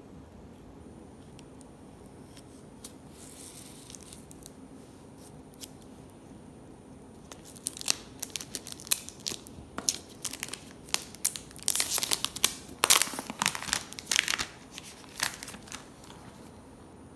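Plastic wrap being torn and peeled off a new iPhone box: a faint rustle at first, then a long run of sharp crinkling, tearing crackles, loudest toward the end before stopping.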